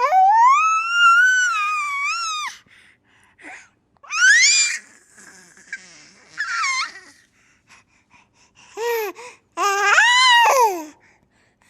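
A baby squealing with high-pitched, gleeful shrieks: one long rising squeal at the start, then several shorter squeals with quiet gaps between them.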